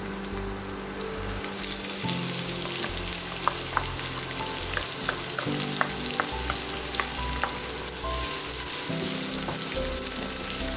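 Hot oil sizzling in a nonstick pan as chopped onions go into the fried mustard seeds, cumin and chillies. The sizzle swells about a second in, with scattered clicks and crackles as the onions are stirred with a wooden spatula.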